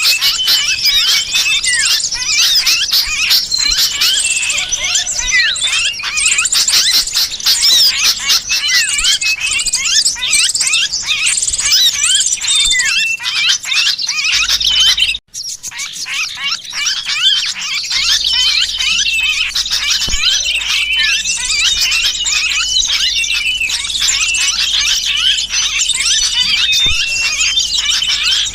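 Bird-lure recording: a dense, agitated chorus of small birds chattering and squealing, mixed with the distress calls of a trapped sooty-headed bulbul. It drops out sharply for a moment about halfway through, then resumes.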